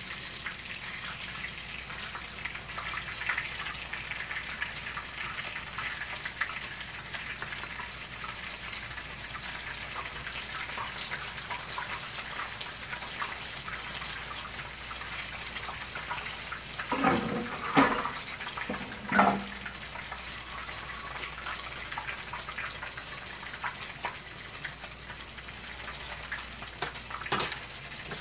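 Breaded cheese sizzling and crackling in hot oil in a frying pan, a steady sizzle. A few brief louder clatters come about two-thirds of the way in.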